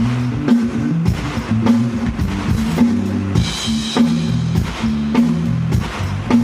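Live band playing through a sound check, with the drum kit keeping a steady beat about twice a second under bass and guitar.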